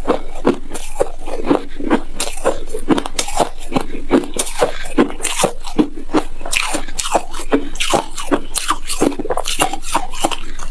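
Close-miked chewing of a mouthful of frozen shaved ice: crisp crunches come several times a second without a break.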